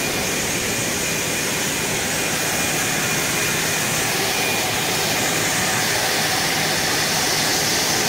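EVA spiral hose extrusion line running: a steady, even machine hiss and whir with a faint high whine, unchanging throughout.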